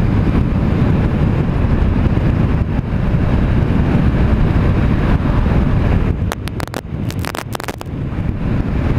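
Steady wind noise buffeting a GoPro microphone on a moving motorcycle, caused by the Honda CBR500R's windscreen sending the airflow into the rider's face. About six seconds in comes a burst of sharp crackles as the audio briefly drops: microphone crackling that the rider blames on the GoPro's long mic adapter.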